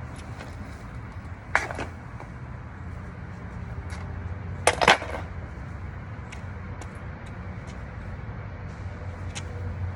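A steady low rumble, with a sharp knock about a second and a half in and a louder double knock near the middle, plus scattered faint ticks.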